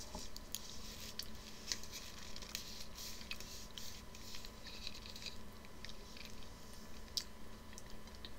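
Close mouth sounds of someone licking and eating a custard-filled sponge cake: small wet clicks and smacks scattered throughout, over a faint steady hum.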